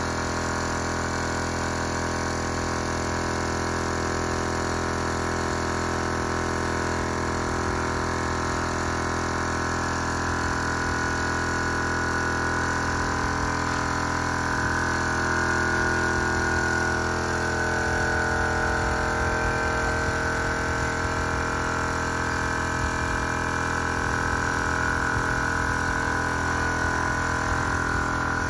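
Small piston air compressor running steadily, its motor giving a constant multi-toned hum while it supplies a paint spray gun.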